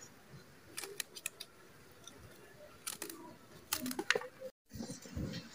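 Kitchen knife slicing okra pods into rounds on a plastic tray: short, sharp clicks in small irregular clusters as the blade cuts through and taps the tray.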